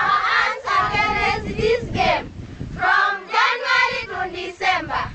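A group of schoolchildren singing together, in phrases with short breaks between them.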